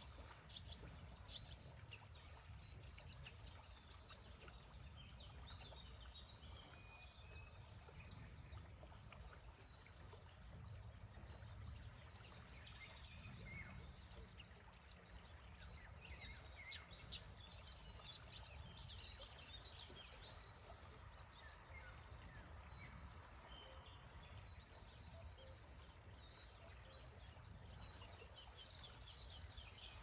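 Faint songbirds chirping, with scattered short calls and brief song phrases that come thickest a little past halfway. Under them runs a low steady rumble from the slow river and the open air, with a thin steady high tone.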